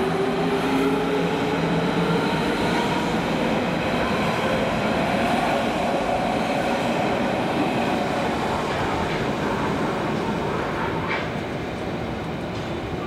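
Berlin S-Bahn class 481 electric train moving along the platform, with wheels rumbling on the rails and a rising electric whine from the drive.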